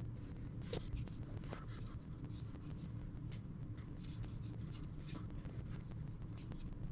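Small brush scratching as gear marking paint is applied to ring gear teeth, soft scattered strokes over a faint low hum; the paint is for checking the ring-and-pinion tooth contact pattern.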